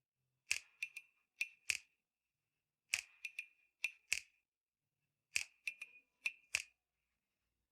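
Sharp, bright clicks in groups of about five, the same pattern repeating roughly every two and a half seconds, like a looped click sound effect.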